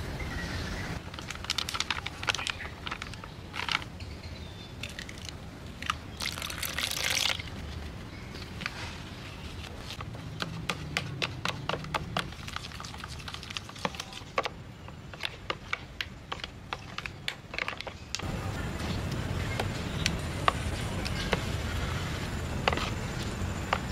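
Food being prepared by hand: rustling and crackling as mushrooms are rubbed in dry flour, then a spoon stirring batter in a plastic tub, with many quick clicks as it knocks against the sides.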